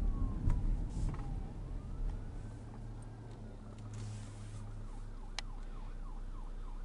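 Emergency rescue vehicle's siren heard from inside a moving car, over the car's low road rumble. It rises and falls in a slow wail, then switches past the middle to a fast yelp of about three cycles a second.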